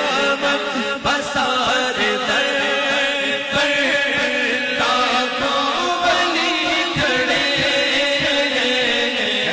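Devotional naat chanting: a male lead voice holding long sung lines, with other voices chanting along behind it.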